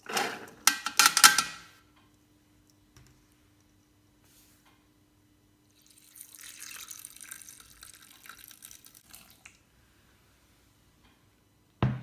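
Soaked soybeans poured from a mesh sieve into a Thermomix TM5's stainless steel mixing bowl, rattling in as a quick clatter that stops in under two seconds. A softer hiss follows from about six to nine seconds in, and there is a short thump just before the end.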